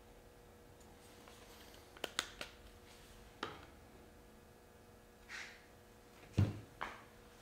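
Hand-handling noises from a pontoon float being test-fitted against the side of an RC truck. There are a few light clicks and taps about two seconds in, a soft scrape, then a louder knock about six seconds in.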